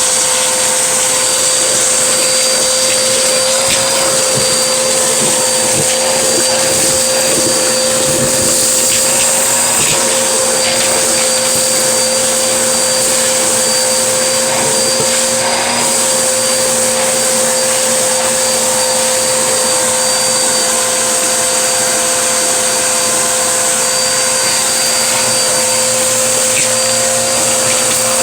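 Vacuum cleaner running steadily with a constant whine over a loud rushing of air, with a few faint ticks in the first half.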